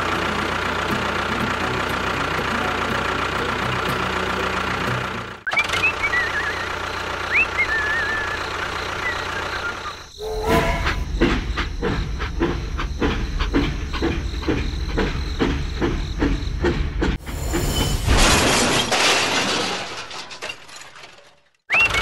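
A steady engine hum for about five seconds, then a few short high chirps. From about halfway, a steam locomotive chugs in an even rhythm of about three beats a second, ending in a long hiss of steam.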